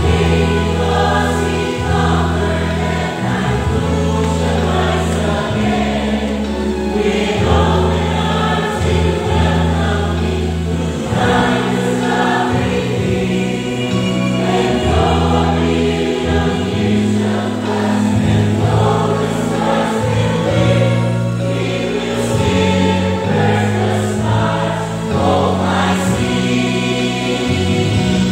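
A church choir, mostly women's voices, singing a gospel hymn in parts over an instrumental accompaniment that holds sustained low chords.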